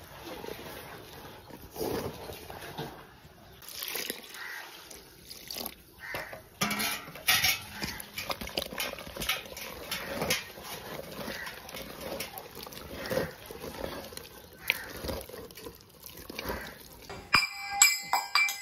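A hand squelching and slapping through wet dosa batter of flour and ground urad dal in a metal bowl, mixing out the lumps in irregular strokes. Near the end come a few short metallic clinks.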